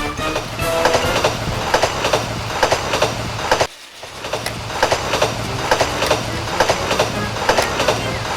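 Plarail battery-powered toy trains running on plastic track: a steady small-motor hum with regular clicking as the wheels cross the track joints, about two to three clicks a second. The sound drops out for a moment about halfway through.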